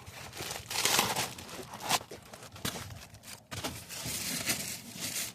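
Rustling, crinkling handling noise with several sharp knocks, the loudest about one and two seconds in.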